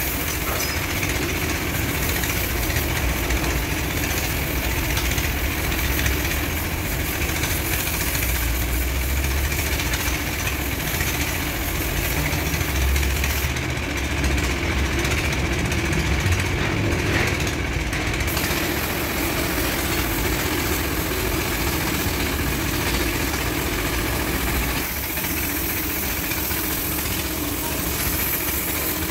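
Steady, engine-like running of a machine with a continuous low rumble, slightly thinner near the end.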